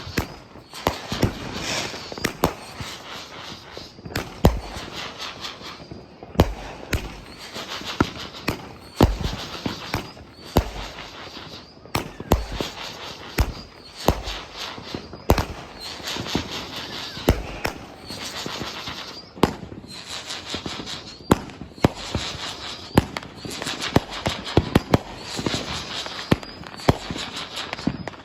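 Consumer fireworks going off in a steady run: sharp bangs every second or two, with crackling and hissing between them.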